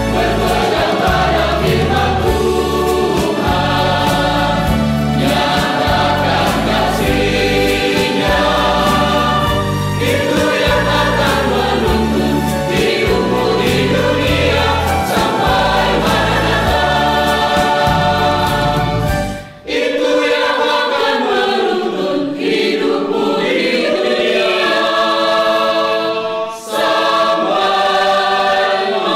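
Mixed choir of men and women singing a Christian song over instrumental backing with a strong bass. About two-thirds through, the bass drops out and the voices carry on alone, more lightly.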